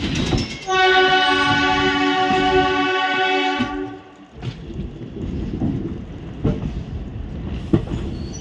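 Diesel multiple unit train's horn sounding one steady blast of about three seconds, starting just under a second in. After it, the moving train's wheels rumble over the track with a few sharp knocks at rail joints.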